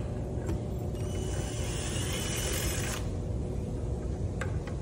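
Cordless drill/driver running for about two seconds, driving a screw into a stool's seat bracket, then stopping suddenly, over a steady low rumble; a few sharp clicks of screws and handling.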